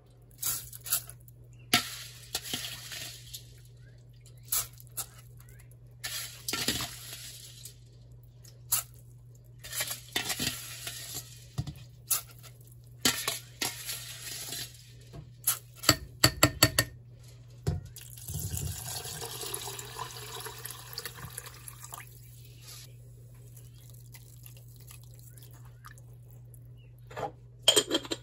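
Rice being rinsed and set up in a stone pot: water splashing and sloshing, with sharp clicks and knocks of dishes and the pot, then a few seconds of water pouring in over the rice. A low steady hum runs underneath.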